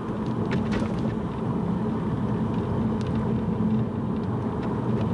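Steady road and engine rumble of a car driving, heard from inside the cabin, with a few faint ticks near the start and about three seconds in.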